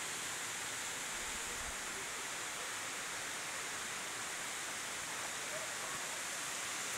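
Steady, even hiss with no distinct events, strongest in the high range.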